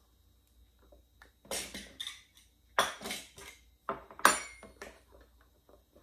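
Hands working at the chocolate decorations on top of a cake, with a plate and fork beside it: a string of short handling noises, the loudest about three seconds in and again a little after four seconds.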